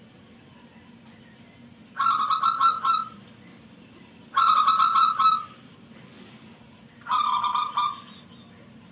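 A local zebra dove (perkutut) with a shrill voice singing: three phrases of quick repeated cooing notes, each about a second long and a couple of seconds apart.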